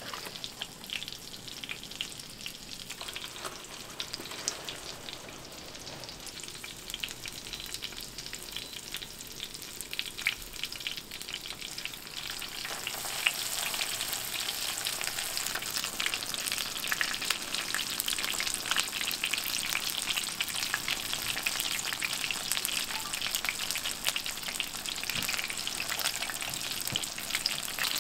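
Breaded chicken drumsticks deep-frying in rendered beef large-intestine (daechang) fat: a dense, crackling sizzle that grows louder about halfway through.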